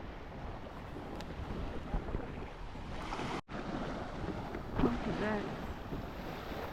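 Ocean surf washing onto a sandy beach, with wind buffeting the microphone. The sound cuts out for an instant about halfway, and a brief distant voice is heard about five seconds in.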